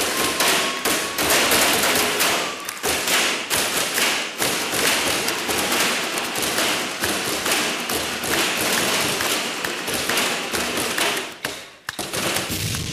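Audience applauding, a dense mass of clapping that thins out to a few scattered claps near the end.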